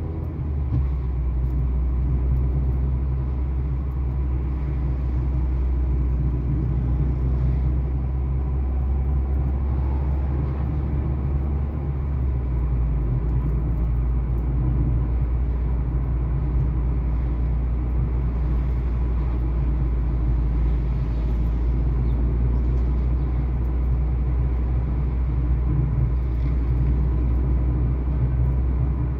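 Steady low road and engine rumble of a moving car, heard from inside the cabin; the deepest part of the rumble drops away about twelve seconds in.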